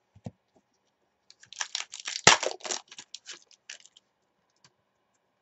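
Trading cards being handled and shuffled: a quick flurry of crisp flicks and rustles lasting about two and a half seconds, loudest about two seconds in.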